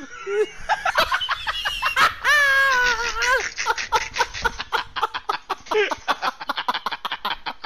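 A person laughing hard: a long high-pitched squealing note about two seconds in, then a fast run of short, rapidly repeated laughs.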